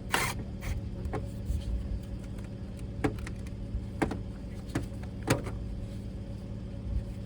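Hand tools and plastic engine-bay parts being handled, giving about half a dozen scattered sharp clicks and knocks over a steady low hum.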